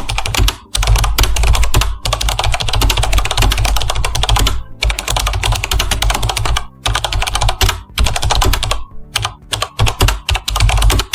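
Rapid clicking like keyboard typing, in runs of one to two seconds broken by brief pauses, over a steady low rumble.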